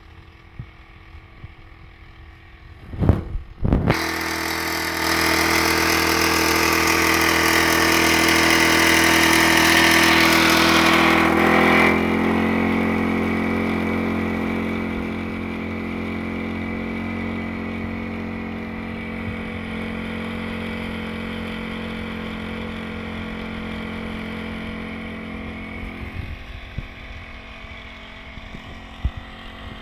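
Small four-stroke engine of a Honda backpack power sprayer. After a couple of loud knocks it picks up about four seconds in and runs hard with a loud rushing hiss, eases off about twelve seconds in and keeps running steadily, then drops lower near the end.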